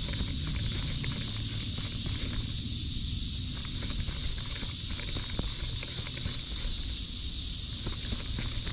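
Steady high-pitched drone of a summer cicada chorus, unchanging throughout, over a low rumble with faint scattered clicks.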